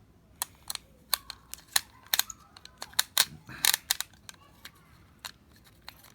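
Irregular sharp clicks and taps of a plastic toy train being handled as its battery compartment is worked open, with a cluster of louder knocks a little past three seconds in.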